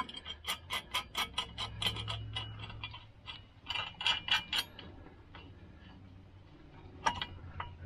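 Quick metallic clicking and clinking of bolts, nuts and a steel light-mount bracket being fitted by hand to a tractor's upright bar: two runs of rapid clicks, then a single click near the end.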